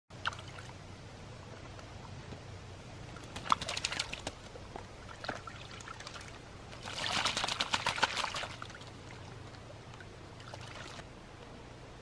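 An American crow bathing in a shallow plastic water tub, splashing the water with its wings and body in several short bouts. The longest and loudest bout comes a little past halfway.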